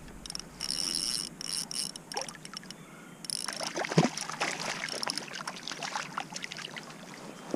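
Hooked white bass splashing and thrashing at the water's surface as it is reeled in beside a kayak, with the loudest splash about four seconds in and a run of smaller splashes after it.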